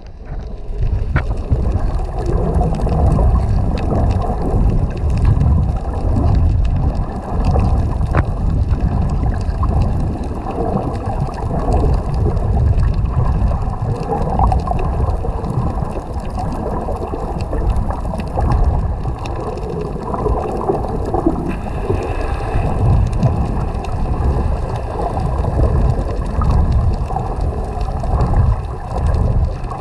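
Muffled underwater noise heard from inside a GoPro's waterproof housing: a steady low rumble and swish of water moving against the case, with a couple of faint clicks.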